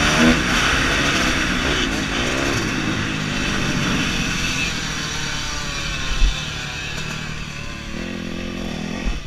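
Motocross dirt bike engine revving up and down as it is ridden over a dirt track, heard from a helmet-mounted camera with a hiss of wind and track noise. A sharp thump about six seconds in, and the engine drops lower near the end.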